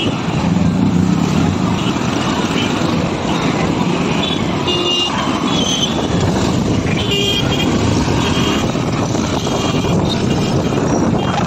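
Steady wind and road noise from riding a motorbike through busy city traffic. Short vehicle horn toots sound a few times around the middle.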